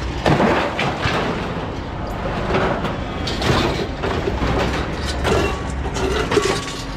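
Scrap metal, wire fencing and air-conditioner units, being dragged and dropped, with repeated clanks and scrapes over a steady low rumble.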